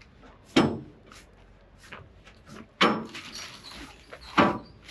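Three sharp metallic clanks from the steel doors of a shipping container being swung open, each ringing briefly.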